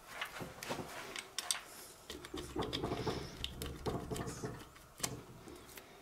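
Small clicks, creaks and scraping of wood and metal as a broken hex-head screw is worked loose from a wooden bowl blank and pulled out with pliers, busiest in the middle.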